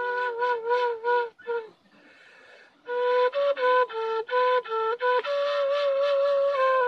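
Solo flute playing a slow melody of held and short notes. It breaks off for about a second and a half a little over a second in, then goes on.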